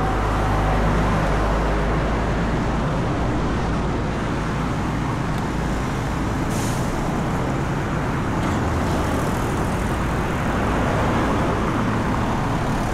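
Steady road traffic noise: vehicle engines and tyres running on the road, with a brief hiss about six and a half seconds in.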